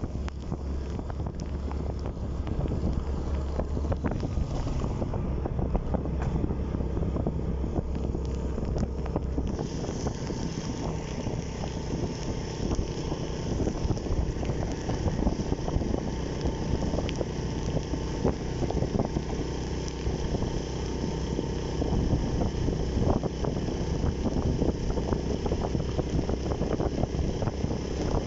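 Motorcycle under way: engine running with wind buffeting the microphone and tyre noise on a wet road. About ten seconds in the low rumble eases and a higher hiss comes up.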